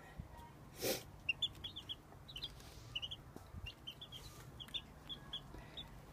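Young chicks peeping: many short, high chirps, often in quick pairs or threes. About a second in, a short breathy rush of noise cuts across them.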